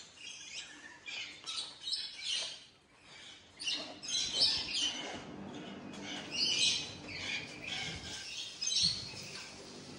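Birds squawking and chirping, a busy run of short, high-pitched calls one after another.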